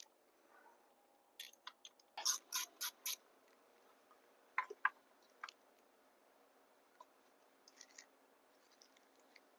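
Sharp clicks and light knocks of a replacement ignition coil being handled and fitted on the engine. A quick run of about half a dozen clicks comes near two seconds in, then two more about a second and a half later, then a few faint ticks.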